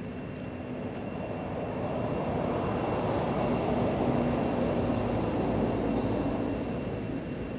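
A motor vehicle passing by, its engine and road noise swelling to a peak about four seconds in and then fading.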